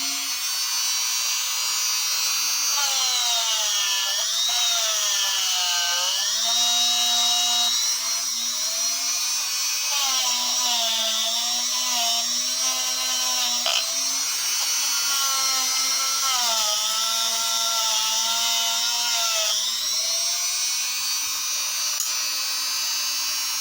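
Electric die grinder running at speed with a steady high whine. Its pitch sags and recovers several times as it is pressed into the jaws and teeth of steel lineman's pliers.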